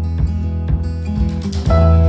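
Background instrumental music with plucked, guitar-like notes over a steady bass. About three-quarters of the way through it gets louder and moves into long held notes.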